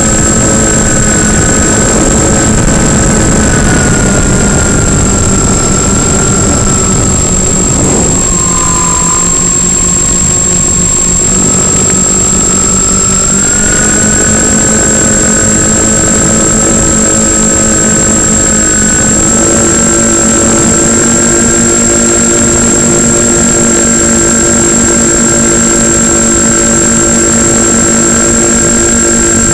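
The twin electric motors and propellers of a Multiplex Twinstar II RC plane, heard from on board, running with a steady whine of two slightly different pitches over air rush. About eight seconds in the pitch drops as the throttle comes back, then it climbs again a few seconds later. A constant thin high tone sits over it all.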